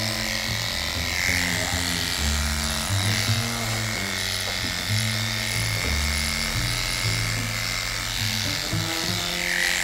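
Background music with a shifting bass line, over the steady whir of a cordless Heiniger dog clipper shearing through matted fur.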